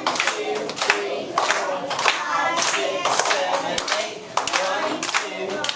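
A class of children and their teacher clapping their hands in rhythm, about two claps a second, with many children's voices singing along.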